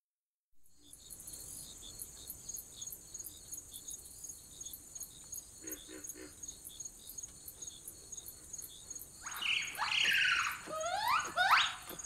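Jungle ambience: insects buzzing and chirping steadily with a fast, regular pulse, starting about half a second in. About nine seconds in, loud animal calls join, swooping up and down in pitch, for around three seconds.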